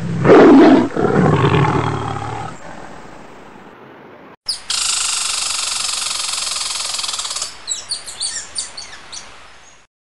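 A tiger's roar sound effect, loudest in the first second and fading away over the next three. After a short break, a steady bright sound follows, then a run of quick high-pitched cries near the end.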